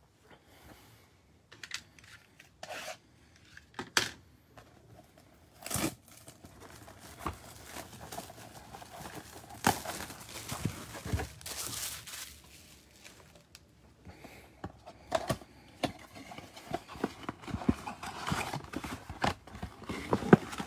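Plastic shrink wrap being torn and crinkled off a cardboard trading-card box, in scattered sharp crackles and rustles, followed by the box's cardboard flap being opened and the card packs handled inside.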